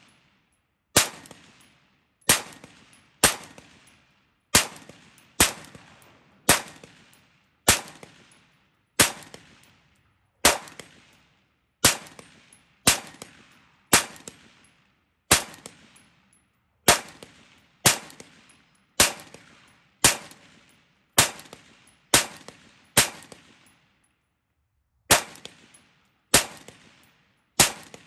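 Centurion Arms custom AR-15-pattern rifle with a 16-inch barrel, fired semi-automatically in single shots at a steady pace of about one a second, each shot trailing off in a short ringing tail. There is a pause of about two seconds near the end, then firing resumes.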